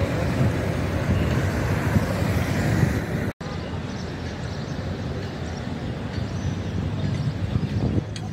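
Vehicle noise: a steady low rumble that cuts off abruptly about three seconds in, followed by a slightly quieter stretch of the same kind of rumble.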